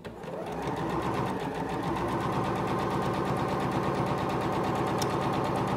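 Singer Professional 9100 sewing machine sewing a straight-stitch test seam under foot-pedal control. It picks up speed over about the first second, then runs steadily with rapid, even needle strokes.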